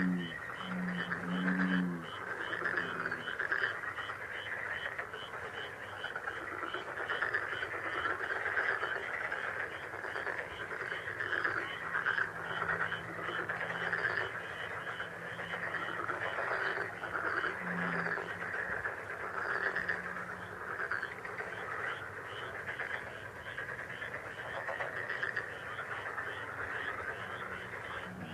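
A dense chorus of frogs calling without a break, with a fast, high ticking running through it. Low pitched calls come in short pulses during the first few seconds and again about two-thirds of the way through.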